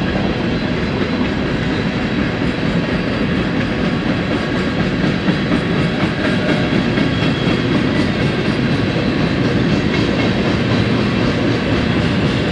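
Freight cars of a BNSF mixed manifest train rolling steadily past on steel wheels and rails.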